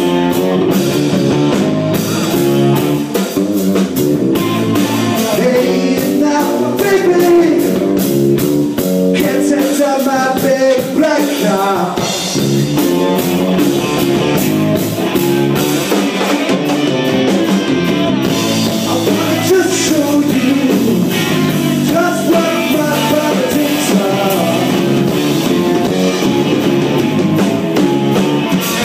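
Rock band playing live: singing over electric guitar and a drum kit, steady and loud throughout.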